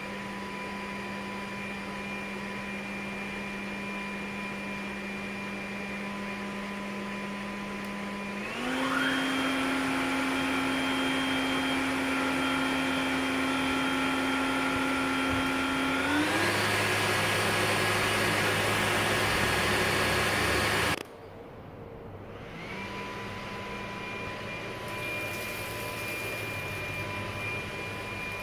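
Bosch Athlet ProAnimal cordless handstick vacuum cleaner's motor running with a steady whine, stepped up twice to higher power settings, each step raising its pitch and loudness. About two-thirds of the way through it cuts out suddenly, then starts again at the lower setting.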